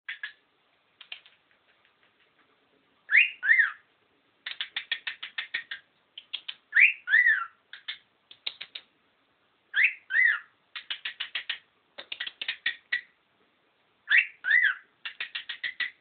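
Cockatiel whistling and chirping in a repeating phrase, about four times over: a rising whistle then a falling one, followed by a quick run of sharp chirps, about eight a second.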